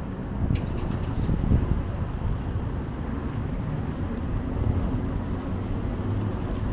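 Road traffic: cars driving by with a steady low hum of engines and tyres.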